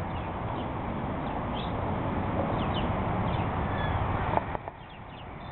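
Steady outdoor rushing noise with faint, brief bird chirps high above it. A sharp knock sounds a little over four seconds in, after which the rushing noise drops away.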